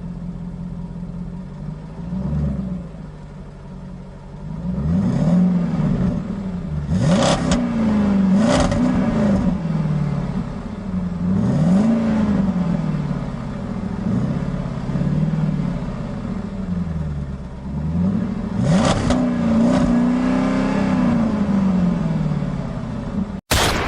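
Radio-controlled racing cars' engines running, their pitch rising and falling over and over as the cars accelerate and back off, with a few short loud noisy bursts. Near the end the sound cuts off suddenly and a different loud noisy sound starts.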